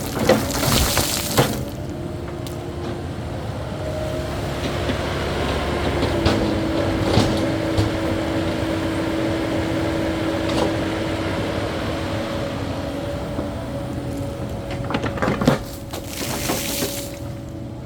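Caterpillar 308E2 mini excavator's diesel engine and hydraulics running steadily, with a held whine that shifts in pitch about six seconds in. Two loud spells of dirt and rock noise come at the start and again near the end as the bucket works the soil.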